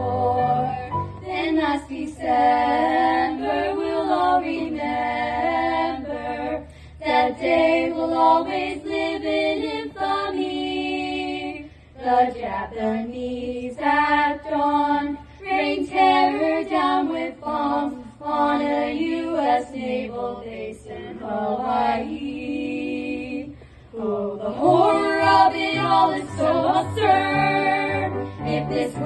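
A solo voice singing a song from a stage musical, with held, gliding notes broken by short breaths, over a steady low instrumental accompaniment.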